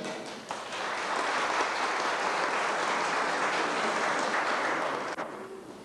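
Large audience applauding, dense clapping that starts suddenly and dies away about five seconds in.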